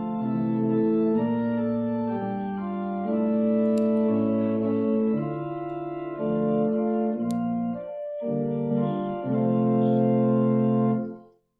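Organ playing slow, sustained chords that change every second or so. It breaks off briefly about eight seconds in and stops abruptly near the end.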